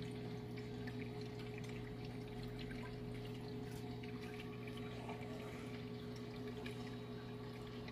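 Aquarium pump humming steadily, with faint trickling and dripping water.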